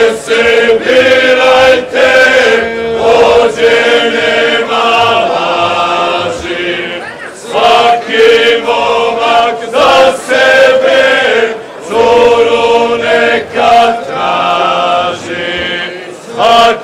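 A group of folk dancers singing unaccompanied as they dance a kolo: a traditional chant-like song sung in phrases of a few seconds, with a steady note held underneath and brief breaks between phrases.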